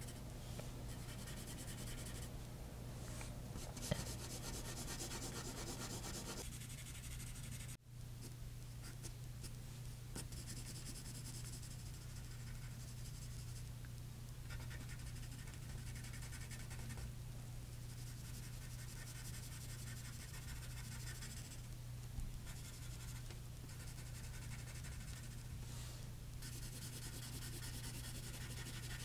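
Graphite pencil scratching and rubbing on paper in repeated shading strokes, over a steady low hum. The sound cuts out briefly about eight seconds in.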